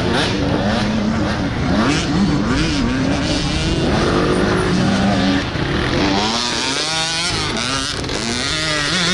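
Small dirt bike engine revving up and down, its pitch rising and falling repeatedly as the rider works the throttle over the jumps. About six seconds in, a higher, wavering engine note joins it.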